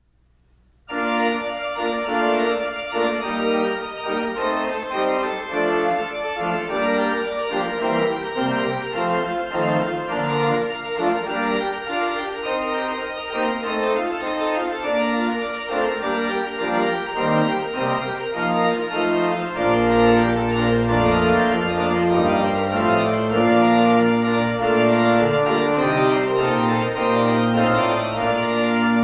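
1966 Wicks pipe organ (two manuals, 21 ranks) playing a fast toccata figuration on the manuals, starting about a second in. About two-thirds of the way through, a low pedal line enters carrying the hymn tune underneath.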